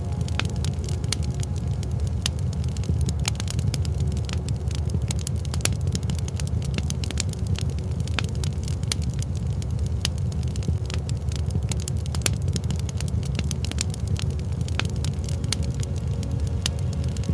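Wood fire burning in a fireplace: dense, irregular crackles and pops over a steady low rumble.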